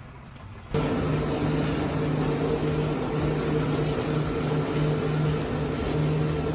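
A machine running steadily with a constant hum under a noisy whir, starting suddenly under a second in.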